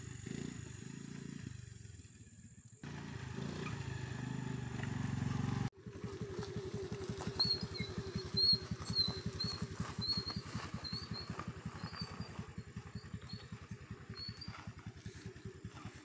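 Honda Dio scooter engine revving hard on a rough dirt trail, broken by two abrupt cuts in the first six seconds, then running on with an even low pulsing.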